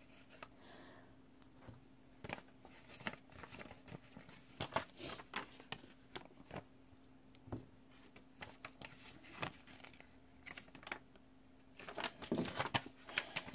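Small paper stickers being peeled from a sticker sheet and pressed onto planner pages: scattered faint crinkles and light ticks, busier and louder near the end.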